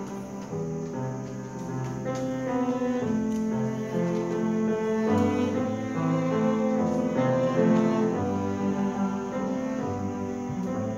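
High school chamber orchestra with piano playing classical music, the bowed strings to the fore with cello and double bass lines in held notes that change every half second to a second.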